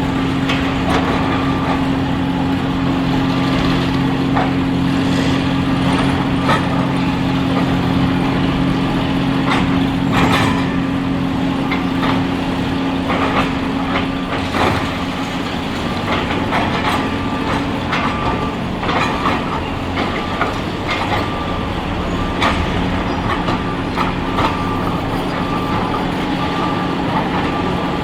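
Heavy excavator diesel engines running steadily, with repeated knocks, cracks and crunches of demolition debris being broken and crushed. A reversing alarm beeps over it in the second half.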